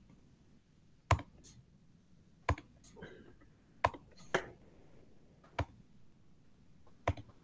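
About eight sharp, irregularly spaced clicks from computer input, with a second or so between most of them.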